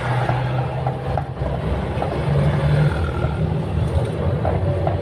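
Engine and road noise of a moving passenger jeepney, heard from inside among the passengers: a steady low engine hum that swells briefly about halfway through.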